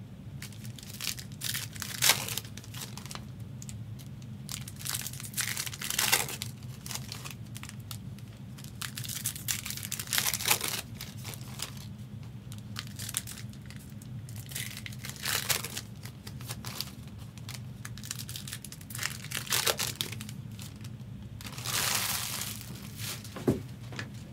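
Wrapped Upper Deck Marvel Platinum trading card packs crinkling as they are handled, in bursts every few seconds, over a steady low hum.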